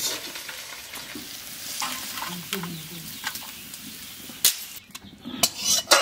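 Food sizzling in hot oil in a steel karahi while a metal spatula stirs and scrapes the pan. Late on, the sizzle falls away and a few sharp metallic clinks follow as the food is turned out onto a steel plate.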